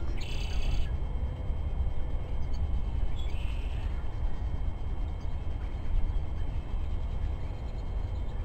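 Wind rumbling on the microphone, with two short bird calls, one right at the start and one about three and a half seconds in.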